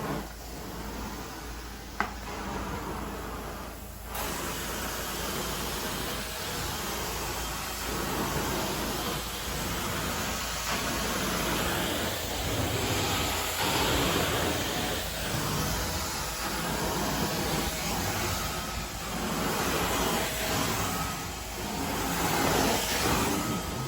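Carpet cleaning machine running with a steady suction-and-hiss rush. It gets louder about four seconds in, then swells and eases in a rough rhythm as it works across the carpet.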